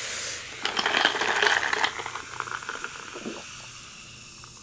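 Diet ginger lime Coke fizzing in a glass mason jar while a plastic straw stirs it. About half a second in there is a second or so of quick clinks and rattles over the fizz, then it settles to a fainter hiss with a few small clicks.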